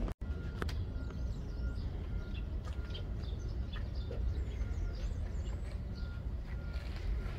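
Small birds chirping in scattered short calls over a steady low rumble, with one short note repeating about twice a second.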